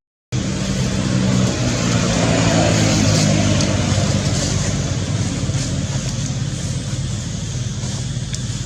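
A motor vehicle engine running steadily under general outdoor noise, swelling a little a few seconds in. The sound drops out for a moment at the very start.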